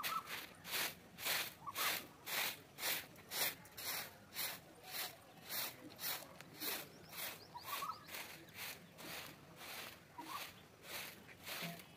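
A short-handled broom sweeping a bare packed-earth yard in quick, even swishing strokes, about two a second, a little softer near the end.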